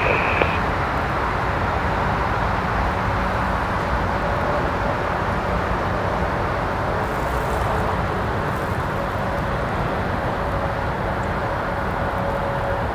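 Steady roar of jet aircraft engines, with a faint, even whine coming in partway through.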